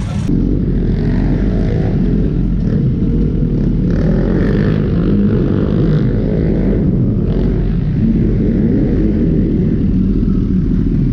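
Motorcycle engine running on the move, its pitch rising and falling with the throttle.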